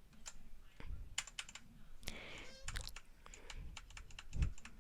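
Keys being pressed on a SteelSeries mechanical keyboard: a run of irregular clicks as key combinations are tried to switch off the backlighting.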